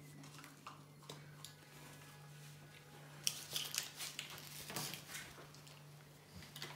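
Rustling, crinkling handling noises for about two seconds from about three seconds in, as Blu Tack is taken from its packet and pulled off. A steady low hum runs underneath, and a few light clicks come before.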